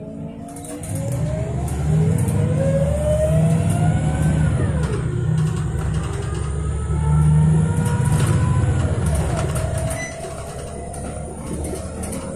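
City bus engine and drivetrain running as the bus drives on, heard from inside the cabin: a low rumble under whines that rise in pitch, drop back about five seconds in, then climb again, with a thin steady high whine on top.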